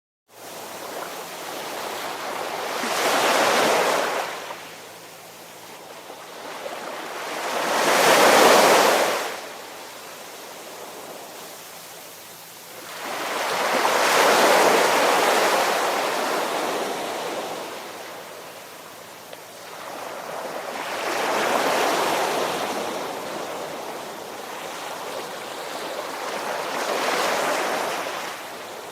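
Ocean surf: waves wash in and recede in five slow swells, one every five to seven seconds. The second swell, about eight seconds in, is the loudest.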